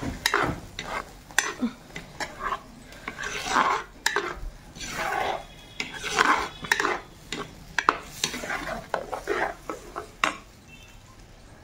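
Steel spoon stirring and scraping onion-ginger-garlic paste frying in oil in a clay pot, in repeated strokes with sharp clinks against the pot and a light sizzle beneath. The stirring stops shortly before the end.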